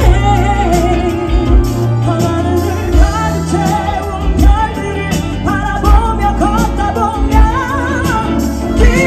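Live pop performance: female vocalists singing sustained notes with vibrato over an amplified band, with bass drum hits about every second and a half.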